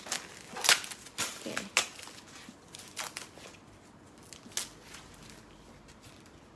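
White packing paper crinkling and rustling as it is handled and pulled away from a new handbag: several short, sharp crackles close together at the start, then fewer and softer ones, with one more crackle near the middle.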